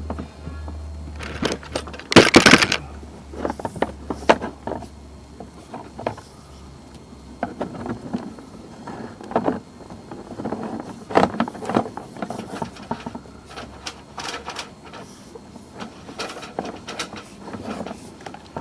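Irregular rubbing, scraping and knocking of equipment being handled, loudest about two seconds in. A low steady hum runs under it through the first six seconds or so.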